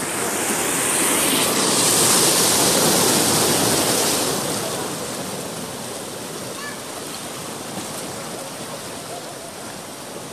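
Ocean surf breaking on a sandy beach: a rush of waves that swells louder over the first few seconds, then settles to a steadier wash.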